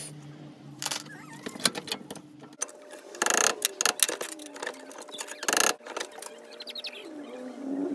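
Small steel parts clinking and knocking as they are handled and clamped in a steel bench vise, with two short bursts of scraping noise.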